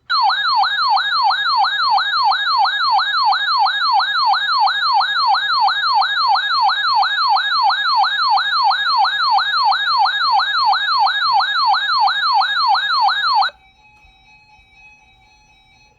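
A weather alert radio's siren alarm sounding for an incoming tornado watch: a loud warbling tone that sweeps up and down about three times a second and cuts off suddenly, leaving a few faint steady tones near the end.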